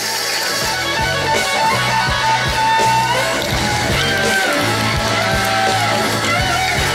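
Background music: a plucked guitar melody with bending notes over a steady bass line.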